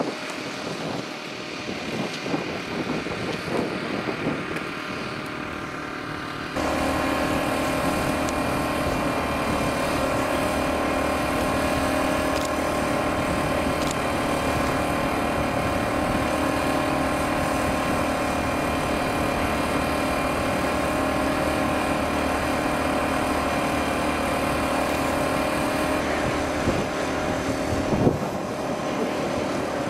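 Engine running steadily, a constant hum that holds one pitch. It cuts in abruptly about six seconds in, after a quieter stretch of outdoor background noise, and there is a short sharp sound near the end.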